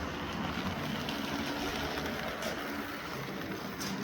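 Model train running along its layout track: a steady electric-motor hum and wheel rumble, with a couple of sharp clicks from the wheels over the track.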